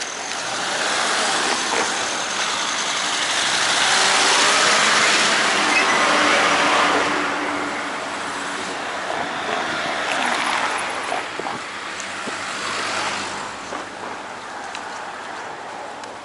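Road traffic: vehicles passing close by, their tyre and engine noise swelling and fading, twice.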